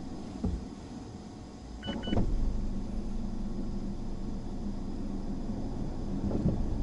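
Car driving with a steady low rumble of engine and road noise. Two short high beeps sound in quick succession about two seconds in.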